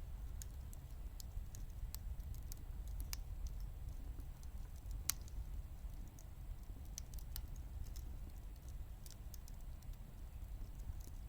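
Wood fire in a wood gas stove crackling, with irregular sharp pops, the loudest about five seconds in, over a steady low rumble.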